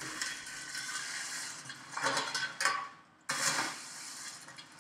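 Popcorn being scooped and poured into a paper bag: a rustling, scraping noise of kernels and paper, louder twice, about two and about three and a half seconds in.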